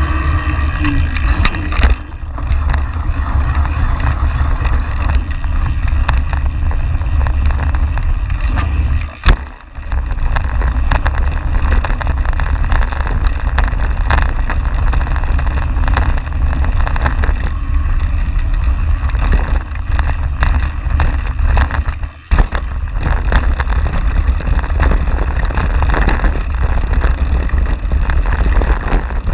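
YT Industries Capra AL enduro mountain bike ridden fast downhill: heavy wind buffeting on the bike-mounted action camera's microphone over tyre rumble and the rattle and clatter of the bike on rough ground. The noise drops out briefly twice, about nine and twenty-two seconds in.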